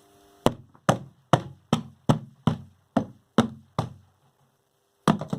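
Nine sharp knocks in a steady rhythm, about two and a half a second, each ringing briefly: blows struck to loosen the reverse-threaded buffer on a twin-tub washing machine's spin shaft. A short clatter follows near the end.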